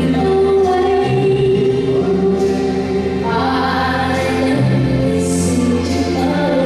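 Music with singing voices over sustained held notes.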